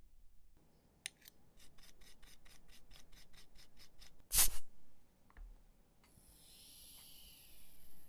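Small brush scrubbing a watch movement part, rasping strokes about five a second, then a single loud knock about four seconds in and a hiss over the last two seconds.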